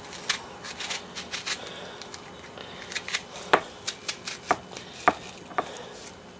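Kitchen knife cutting through a raw onion held in the hand: a series of crisp, sharp cuts at uneven spacing, the loudest in the second half.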